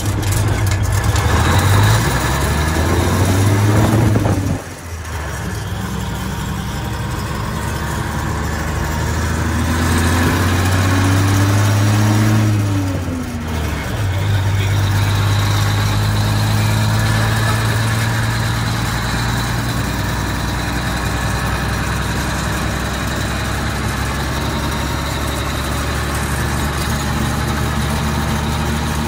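Straight-piped, naturally aspirated Cummins NHC250 inline-six diesel of an AM General M813A1 5-ton truck, revved up twice, each time climbing for a few seconds and then dropping back. It then settles into a steady idle.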